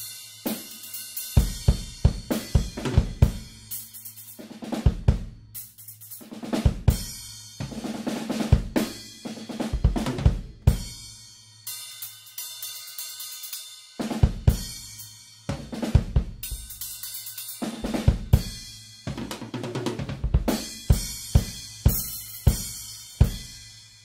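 Drum kit played with Centent Whisper Series reduced-volume cymbals, perforated with small holes to cut their volume: snare, bass drum and hi-hat grooves with crash and ride hits. About halfway through the drums drop out for a couple of seconds, leaving only a high ringing.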